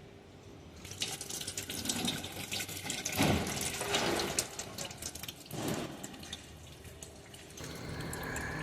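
Liquid running and splashing, with scattered clicks, swelling louder a few times.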